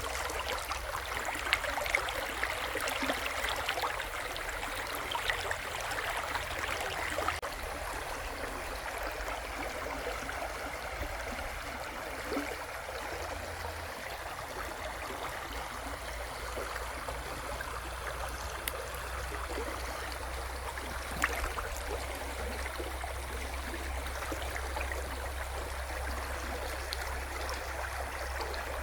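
Shallow river running steadily, with a continuous rushing and gurgling of water and small splashes throughout.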